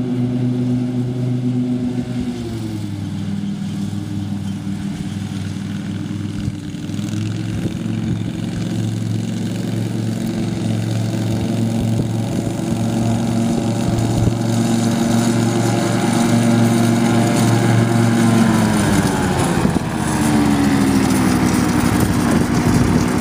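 Husqvarna riding lawn tractor's engine running steadily as it mows, getting louder as it approaches and passes close by. Its note drops in pitch about two seconds in and again near the end.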